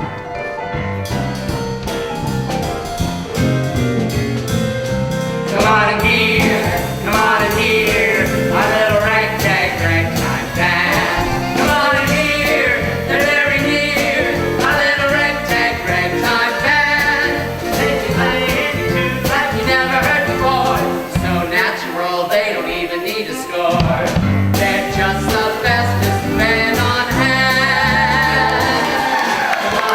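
A live band plays a song with a bass line from the start, and a singer comes in about six seconds in and sings on over the band.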